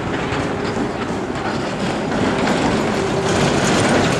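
A red and yellow electric city tram running along street rails, its wheels clacking and rumbling over the track, with a steady hum that grows louder toward the end as it comes nearer.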